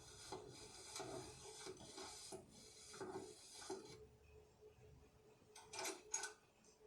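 Soft shuffling footsteps with a scraping sound, about three steps a second, stopping about four seconds in. Near the end come a few short clicks.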